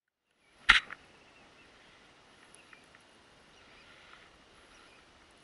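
Half a second of dead silence, then a single sharp knock a little under a second in, followed by faint steady hiss with a few soft ticks.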